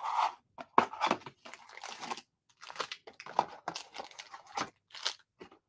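Plastic wrapping on trading-card boxes and packs being torn and crinkled: a run of short, irregular rustles and tears, the loudest about a second in.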